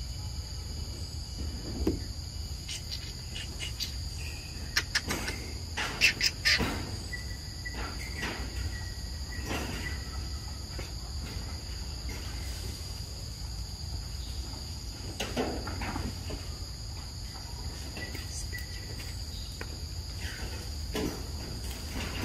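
Steady high-pitched drone of insects, with scattered sharp clicks and rustles, a cluster of louder clicks about six seconds in, and a thin held whistle a little later.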